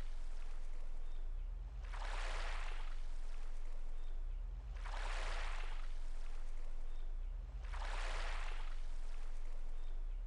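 Sea waves washing in and drawing back in even swells about every three seconds, over a steady low drone.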